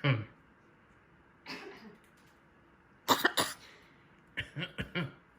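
Blue-and-gold macaw mimicking a human cough, in several bouts: a weaker cough about a second and a half in, a louder double cough around three seconds, and a quick run of three or four coughs near the end.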